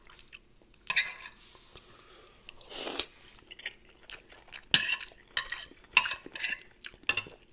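Metal cutlery clinking and scraping on a plate: a string of sharp clicks, a short scrape about three seconds in, and quicker, louder clinks in the second half.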